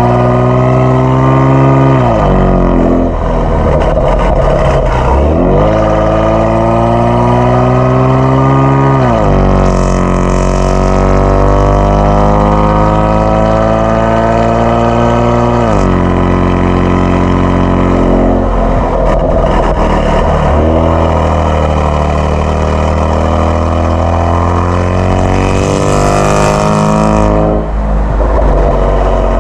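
Kia Stinger 3.3 twin-turbo V6 with a JSR Performance aftermarket exhaust, accelerating under load. The revs climb and then drop sharply several times, as at upshifts.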